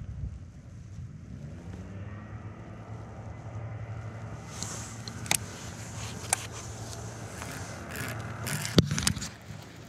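A steady low motor hum that rises in pitch about a second in, with several sharp clicks and knocks in the second half, the loudest near the end.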